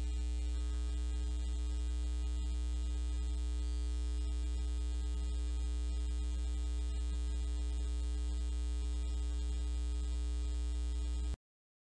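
Steady electrical mains hum with a buzz of many steady overtones above it. It holds flat throughout and cuts off suddenly near the end.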